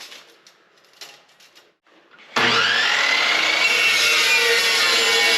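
A few faint clicks of steel stock being set in the saw, then about two and a half seconds in an Evolution chop saw starts abruptly with a rising whine and runs loud and steady, cutting through steel.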